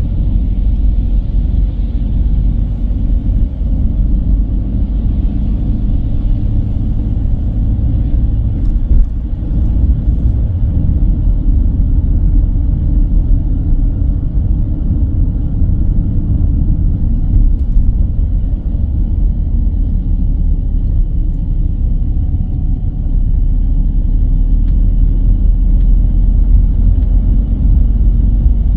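A car driving at a steady pace: a continuous low rumble of road and engine noise. The deepest part of the rumble grows a little louder near the end.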